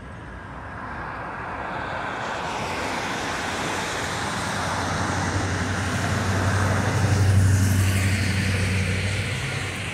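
A road vehicle passing close by: its tyre and engine noise swells to a peak about seven seconds in, with a low engine hum, then fades.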